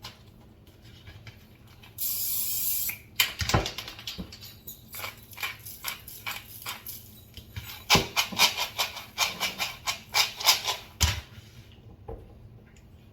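A short hiss from an aerosol can of butter-flavoured non-stick cooking spray, lasting about a second, followed by a run of irregular sharp clicks and crunches for several seconds.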